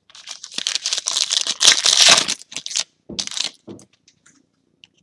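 Foil trading-card pack wrapper crinkling and crackling for a little under three seconds, then a few light clicks as the cards are handled.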